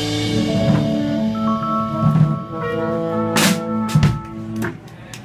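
Live small jazz group of trumpet, saxophone and drum kit holding long final notes of a tune, with drum and cymbal hits about three and a half and four seconds in. The held chord cuts off shortly before the end, closing the piece.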